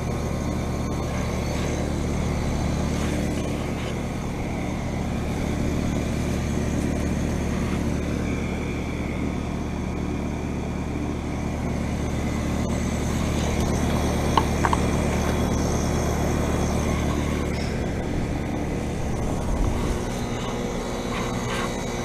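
Steady hum and whir of a running heat pump outdoor unit, its fan and compressor heard close up. The deep part of the hum drops away near the end.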